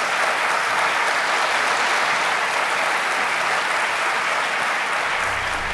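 An audience applauding steadily. Low music fades in under the clapping near the end.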